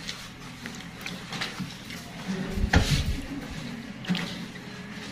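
Light clicks and knocks of things being handled inside an open fridge during cleaning, with one louder low thump about three seconds in.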